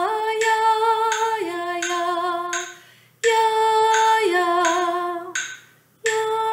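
A woman singing 'aya ya ya' in phrases, each stepping down from a higher note to a lower one, with two short breaks between phrases. A light metronome tick keeps a steady 85-beats-a-minute pulse under the voice.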